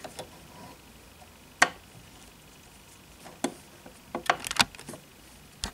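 Light handling clicks and ticks as fingers thread the two eyes of a twin needle on a sewing machine and pull the threads through: single clicks about one and a half and three and a half seconds in, a quick cluster a little past four seconds, and one more near the end.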